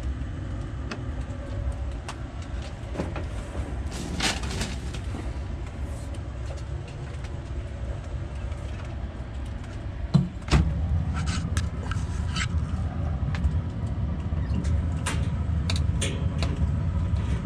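Light clicks and taps of meat-thermometer probes and their wires being handled, over a steady low rumble. A couple of knocks come about ten seconds in, after which the rumble grows louder.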